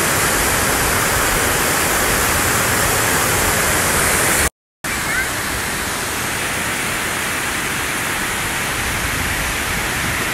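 Bridal Veil Falls, a tall waterfall spreading over a tiered rock face, pouring with a steady rush of falling water. The sound cuts out briefly about four and a half seconds in, then resumes a little quieter.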